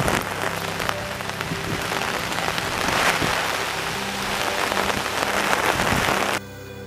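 Heavy rain pouring down on trees, a dense steady hiss over faint background music; the rain cuts off suddenly near the end.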